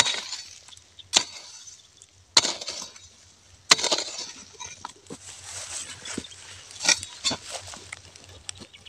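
A metal-bladed digging tool chopping into dry, clumpy soil, a sharp strike about every second or so with a few lighter ones between, each followed by the rattle of clods breaking and falling.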